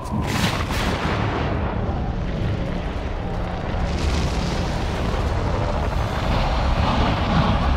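Film sound design for Alioth, a storm-cloud monster: deep, continuous rumbling like rolling thunder, with a sharp crack just after the start.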